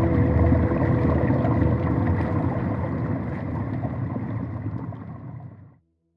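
Muffled underwater rumble with a steady hum running through it. It fades gradually, then cuts off shortly before the end.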